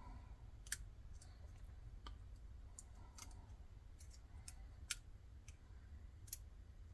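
Faint, irregular clicks of a lock pick working the pin tumblers of a six-pin Weiser pin-tumbler lock.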